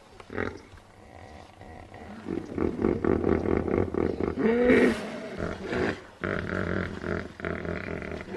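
Animal-like growling and roaring made as a sound effect for a Pakicetus. A harsh rasping growl builds about two seconds in, breaks into a short wavering wail just before the middle, and goes on rasping after it.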